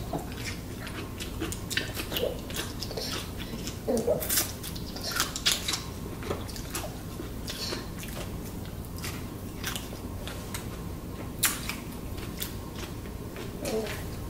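Eating sounds close to the microphone: chewing and wet mouth clicks and smacks, coming irregularly, with a few short vocal sounds around four seconds in.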